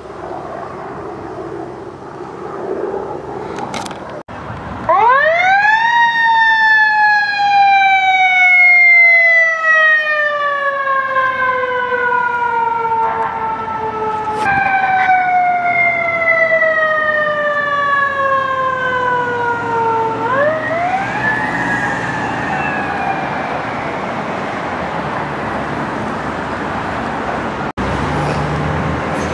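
Fire truck's siren winding up sharply, then slowly falling in pitch over several seconds, wound up again twice in the manner of a mechanical siren. After the last wind-up it fades under engine and road noise.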